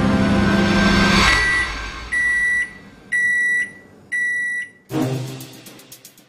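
Microwave oven's steady hum cuts off about a second in, then its timer beeps, one short beep followed by three longer ones a second apart, signalling the end of the heating cycle. Music starts near the end.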